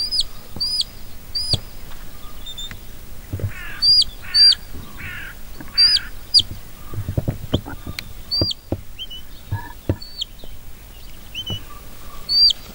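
Shepherd's whistle giving commands to a working sheepdog: short, sharp, high whistle notes that rise and then drop away, blown singly and in pairs every second or two, with a few lower warbling notes in between.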